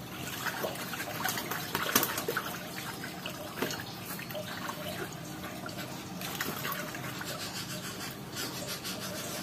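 Water sloshing and dripping, with irregular small clicks and knocks; the sharpest knock comes about two seconds in.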